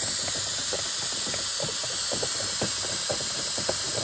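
Aerosol can of Flex Seal liquid rubber spraying in a steady hiss onto a spinning plastic toy wheel, beginning abruptly, with a faint irregular crackle underneath.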